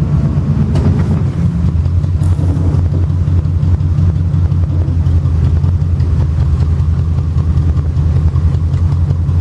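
A truck engine idling steadily, a low even rumble, with a couple of faint clicks about a second in.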